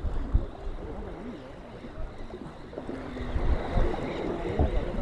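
Wind buffeting the microphone in uneven low rumbling gusts, stronger in the second half, over faint voices of people in the background.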